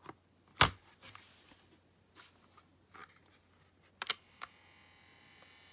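Plastic clicks as the Panasonic RQ-V61 personal cassette player is handled and its controls worked, the loudest about half a second in, then a double click about four seconds in, after which the cassette motor starts a faint steady whirr. The motor runs but the spindles don't turn, which the owner puts down to perished drive belts.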